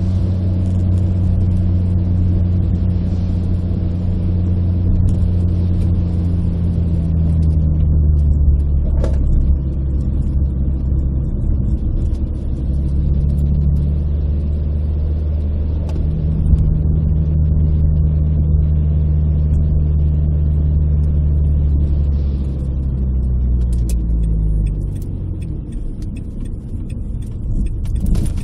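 Renault Clio RS 172's 2.0-litre four-cylinder engine running at a steady cruise, heard from inside the cabin. Its note falls and fades away near the end as the car slows.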